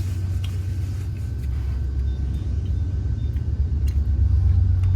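Train passing by: a deep, steady rumble that grows gradually louder.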